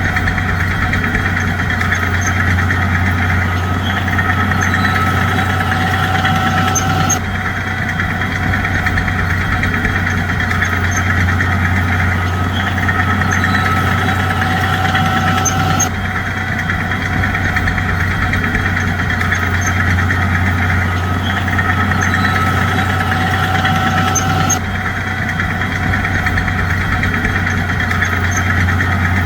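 Heavy diesel engine of a bulldozer running steadily with a deep drone. The sound shifts slightly in character about every nine seconds, in a repeating pattern.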